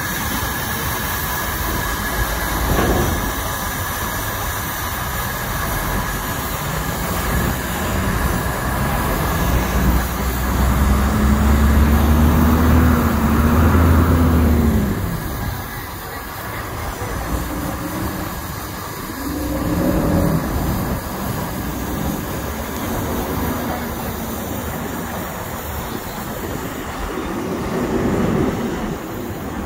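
Heavy vehicle engine noise over a steady background of traffic. In the middle a big engine grows loud, its low hum rising slightly in pitch for several seconds, then drops away about 15 seconds in.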